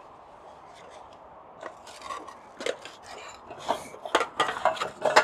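Aluminium slat top of a roll-up camp table being unrolled and laid onto its folding frame: the slats clink and clatter against each other and the frame. It is a string of light, irregular metallic clicks starting about two seconds in and getting busier near the end.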